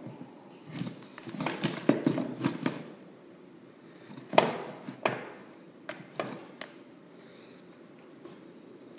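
Multimeter test probes and their leads being handled and pushed against a wall receptacle: scattered small clicks and knocks, busiest in the first three seconds, then a few single clicks.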